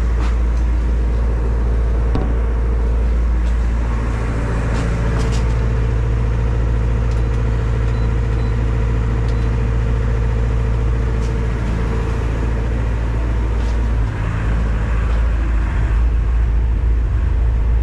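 An engine running steadily at idle, a low drone with a few faint clicks. Its level dips briefly about fourteen seconds in, then runs a little louder.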